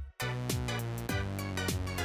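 Background electronic music with a drum-machine beat of deep drum hits that drop in pitch, about two a second. It cuts out for a moment just after the start.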